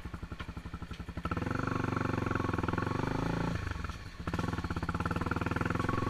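Honda XRE 300 single-cylinder four-stroke engine running while the bike is ridden: a low, even note at first, revving up about a second in, easing off briefly a little past halfway, then picking up again.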